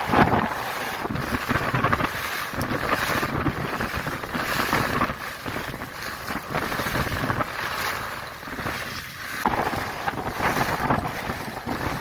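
Wind rushing over the microphone at skiing speed, with skis carving on firm groomed snow. The noise swells and dips every second or two as the turns link.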